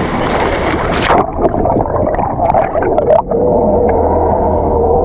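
Boat engines running with rushing water and a bright hiss of wind and spray. The hiss drops away abruptly about a second in, leaving a steadier, duller rumble.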